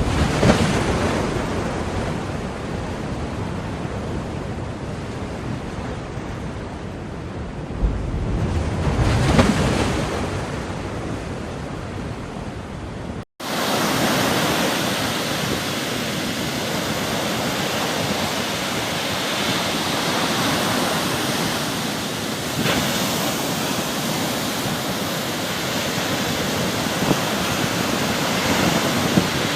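Ocean waves washing onto a shore, with one larger wave swelling and breaking about nine seconds in. About a third of the way through the sound cuts out for an instant and resumes as a brighter, steadier rush of water.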